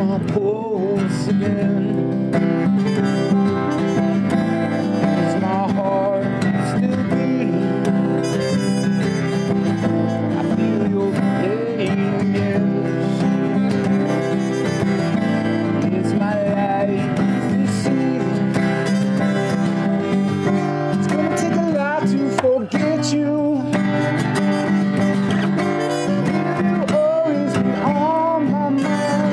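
Muted trumpet playing a slow melody over a strummed acoustic guitar.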